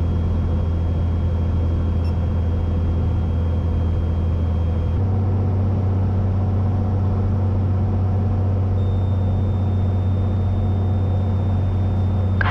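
Cessna 182T's six-cylinder Lycoming IO-540 engine and propeller droning steadily in the cabin on final approach. The drone shifts slightly in pitch about five seconds in.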